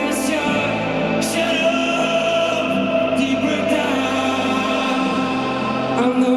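Live pop band music: long held chords with wordless, choir-like singing and a few light cymbal strokes.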